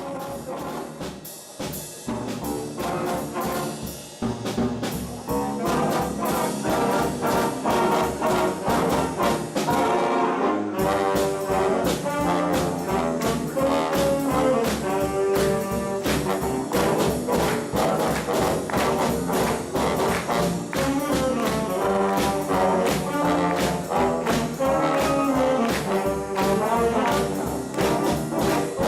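A high-school jazz band playing live: trumpets and trombones carry the tune over a steady drum beat. The bass end fills out about ten seconds in.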